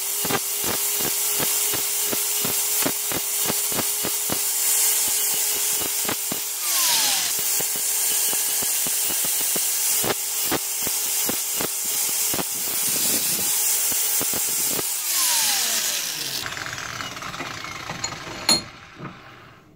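Flex angle grinder grinding the steel head of a rusty blacksmith's hammer: a steady motor whine with the harsh rasp of the disc on the metal. The motor's pitch drops briefly about six and a half seconds in and again around fifteen seconds, and near the end the grinder winds down, followed by a single sharp knock.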